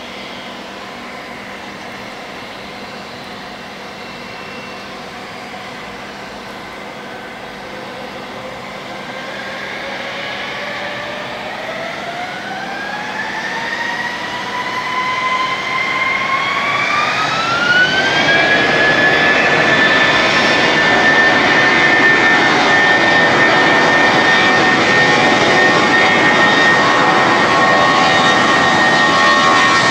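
Airbus A319 jet engines spooling up from idle to takeoff thrust: for the first several seconds a steady hum, then from about eight seconds in a whine that rises in pitch for about ten seconds, growing louder, and then holds as a steady high whine over a loud rushing noise as the airliner starts its takeoff roll.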